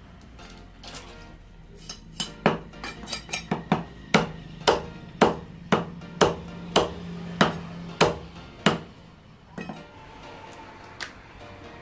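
A large curved chopping knife chopping a whole rohu fish into steaks on a wooden log block. A few light knocks come first, then about nine heavy chops, about two a second, which stop near the end.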